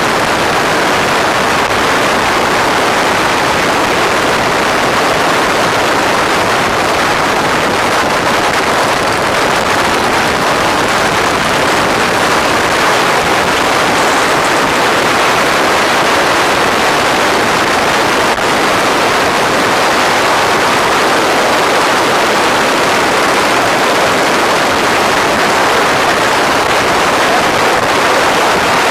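Steady rush of wind on the microphone of a moving motorcycle, with no engine note standing out.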